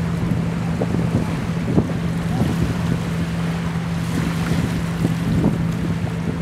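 Steady drone of a motorboat engine across the water, with wind buffeting the microphone and small waves washing on the rocks.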